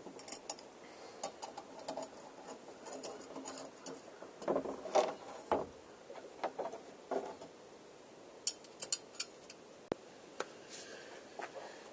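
Scattered light clicks and small metallic knocks of bicycle crank parts and tools being handled, with a quick run of sharp clicks about nine seconds in.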